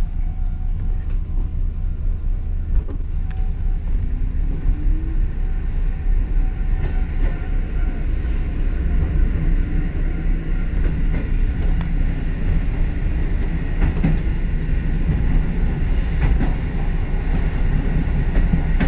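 Kotoden 1080-series electric train pulling out of a station and running, heard from inside the front of the car: a steady low rumble with a rising whine about four seconds in as it gathers speed, and now and then a sharp clack of the wheels over rail joints.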